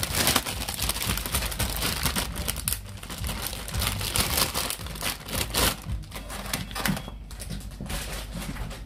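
Plastic grocery packaging, including a plastic bag of grapes, crinkling and rustling in irregular crackles as it is handled.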